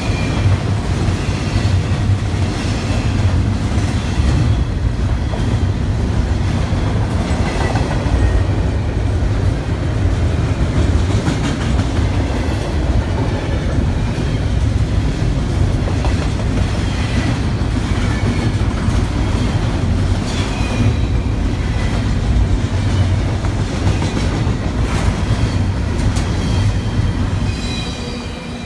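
BNSF intermodal freight train of double-stack container cars passing close by: a steady heavy rumble with wheels clattering over the rail joints and faint squealing that comes and goes. The noise falls off near the end.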